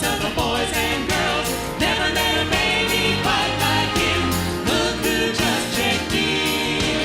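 A Christmas song: a voice singing over instrumental accompaniment.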